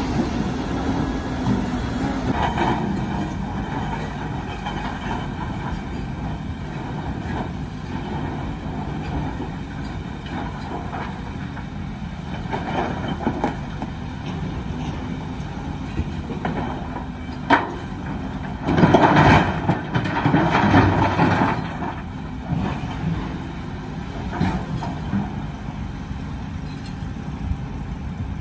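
Diesel engines of a Volvo crawler excavator and a dump truck running steadily. There is a sharp knock about two-thirds of the way through, then a loud rough clatter lasting a few seconds as the bucket loads broken rock into the truck's steel body.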